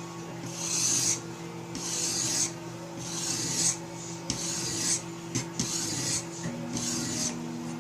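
Sharpening stone of a RioRand guided knife sharpening kit rasping along a knife edge in about seven separate strokes. These are test strokes to check that the stone's angle matches the bevel by rubbing off blue marker.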